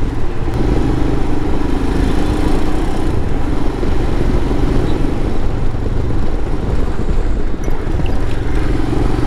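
Royal Enfield Himalayan's single-cylinder engine running steadily as the motorcycle rides along, with a constant low rumble of wind and road noise.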